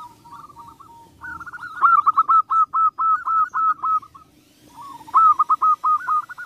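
Zebra dove (perkutut) song: runs of short, quickly repeated cooing notes. A faint run opens, a loud phrase starts about a second in, and after a short pause a second loud phrase starts about five seconds in.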